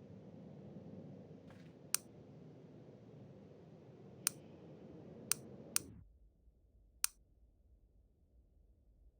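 A handful of sharp, isolated clicks, five in all, a second or so apart, over a faint low hum that drops away about six seconds in.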